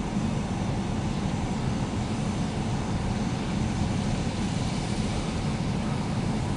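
CSX switch rail grinder's diesel engines running steadily as it moves along the track: a constant low rumble with a hiss above it.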